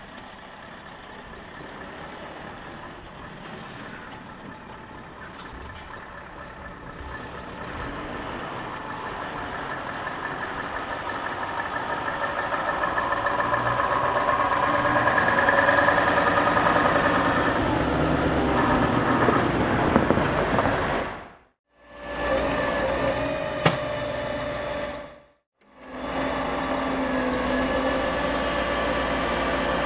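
Scania R580's V8 diesel engine pulling the empty timber truck and trailer, growing steadily louder over the first half as it approaches. After two short dropouts in the sound, an engine runs steadily with a constant hum.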